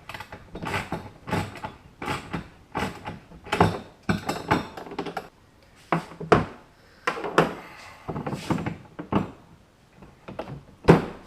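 Socket ratchet wrench with a 10 mm socket clicking in short repeated strokes, roughly two a second with a brief pause midway, as a bolt is tightened down.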